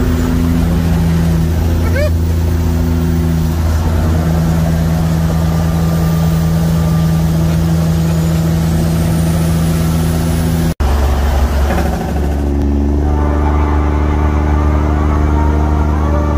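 Semi-truck diesel engine heard from inside the cab, a steady low drone with several held tones. It cuts out for an instant about two-thirds of the way through, then comes back running at a higher pitch.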